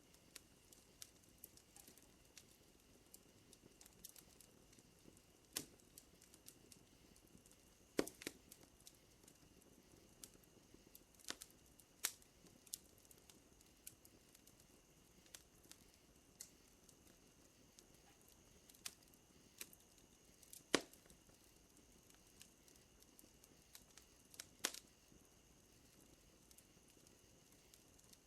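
Wood fire crackling: sparse, irregular sharp pops and snaps, a few louder ones standing out, over a faint steady high-pitched tone.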